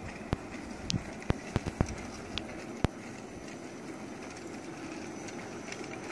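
Gauge 3 model locomotive's tender drive running steadily: twin 365 electric motors and gear train whirring as it rolls along the track. Sharp clicks come from the running gear and track, several in the first three seconds.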